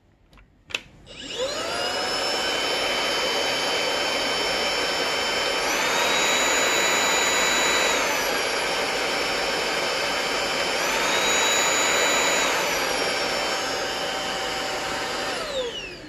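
Dibea D008Pro cordless vacuum's brushless motor switched on with a click, spinning up with a rising whine and then running steadily. Twice it steps up to a higher-pitched, louder speed for a couple of seconds and drops back, as it is switched between normal and max power, and near the end it winds down with a falling whine.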